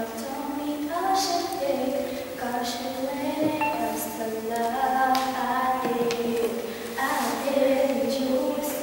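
A girl singing solo and unaccompanied: a melody of held notes, one after another.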